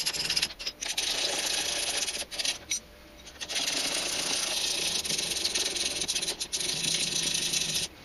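Ratchet wrench clicking rapidly in quick strokes as a loosened bolt is backed out. It comes in three runs, with short pauses about half a second in and from about two to three and a half seconds in.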